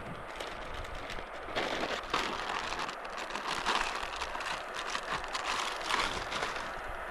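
River water splashing and trickling, with many small irregular clicks and crackles.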